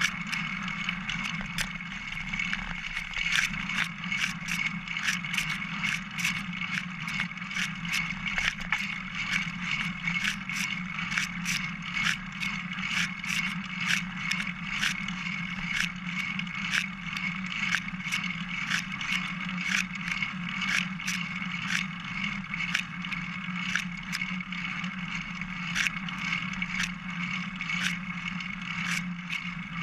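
Single-speed Specialized bicycle being ridden on a trail, heard through a GoPro mounted on the frame's top tube: a steady rolling hum from the tyres and drivetrain with frequent sharp clicks and rattles, one or two a second, as the frame is jolted.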